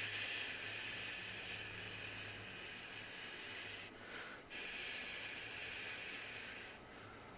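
A man's mouth-made hissing sound effect, a long steady hiss that breaks off briefly about four seconds in, then hisses again until near the end.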